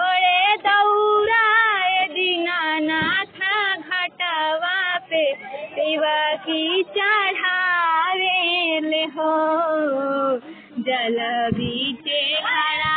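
A woman's high voice singing a Bhojpuri Chhath devotional song in one long melodic line of bending, ornamented notes, with a few short breaks for breath.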